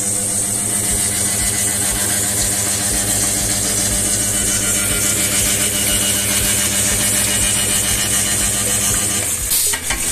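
Resistance seam welder working: the 100 kVA welding machine hums and buzzes with an uneven low throb as its copper wheel electrode welds a steel drum seam, over the steady hiss and splash of cooling water. The hum cuts out about nine and a half seconds in.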